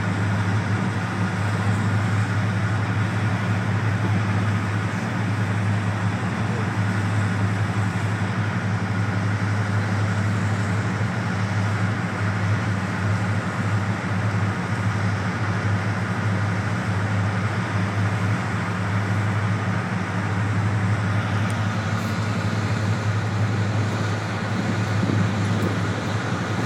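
Napier Deltic two-stroke opposed-piston diesel engines of several Class 55 Deltic locomotives running together, a steady low hum that holds even throughout.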